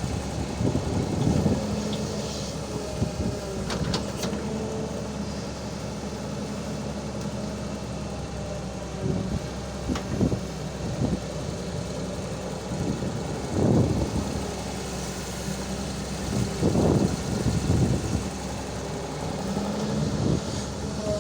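Excavator's diesel engine running steadily at a work site, swelling in level now and then, with a few sharp metallic knocks.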